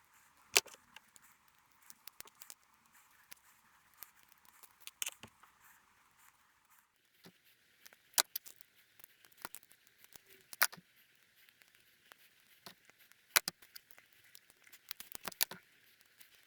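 Scattered light clicks and taps from handling the solenoids of an SST transmission's mechatronics unit while new O-rings are fitted, with a few sharper clicks standing out.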